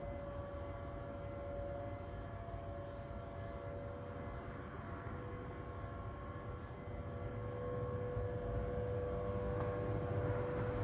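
Distant outdoor warning sirens sounding a steady, very faint wail, with an old Federal Signal Thunderbolt siren coming over from far off. The tone swells a little and sags slightly in pitch over the last few seconds as a rotating siren turns toward the listener. This is a routine monthly siren test, not a warning.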